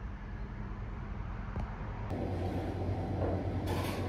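Background ambience with no speech: a steady low rumble of road traffic that switches abruptly about two seconds in to a louder, fuller hum, with hiss added near the end.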